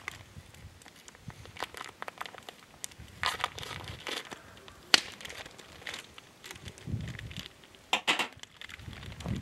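Plastic bag crinkling and rustling as it is handled, in irregular bursts, with one sharp click about five seconds in.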